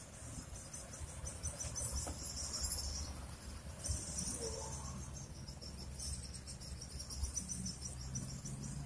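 Insects chirping: high-pitched, rapidly pulsing trills in runs of a few seconds with short breaks, over a faint low rumble.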